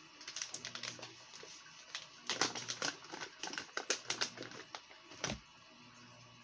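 Plastic bait packaging crinkling and crackling in the hands as a pack of soft plastic crawfish baits is opened: a run of irregular crackles and clicks that ends with one sharper snap about five seconds in.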